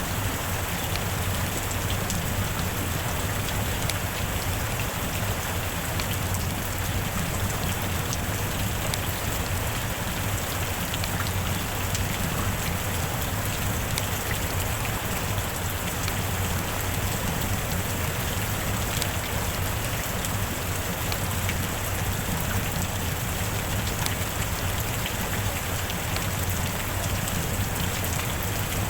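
Heavy rain falling steadily, a constant hiss with scattered sharper drop hits.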